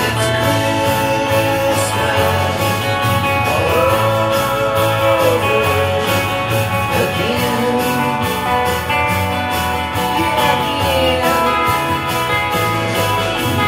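Rock song with a man singing, drums and bass, and a Rickenbacker electric twelve-string guitar strummed along with it.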